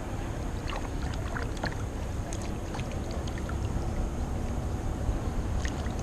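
Small water splashes, drips and light knocks around a kayak as a freshly caught rock bass is handled, over a steady low rumble.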